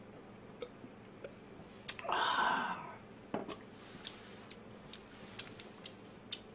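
Drinking cola from a glass, then a loud breathy exhale of just under a second about two seconds in, followed by sharp clicks as the glass is set down on the table. Faint clicks and taps from handling sound through the rest.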